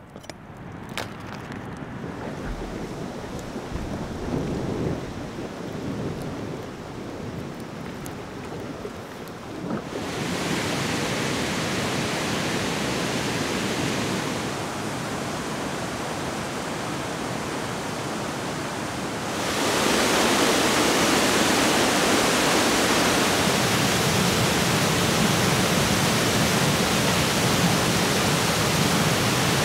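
Rushing water of waterfalls and a mountain river: a steady noise that steps up in level about ten seconds in and again just before twenty seconds, ending as a loud, even rush close to a large waterfall.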